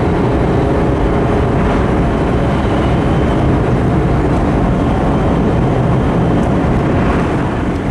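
Steady running noise of an E5 series Shinkansen at speed, heard inside the passenger cabin: a loud, even rush that does not change.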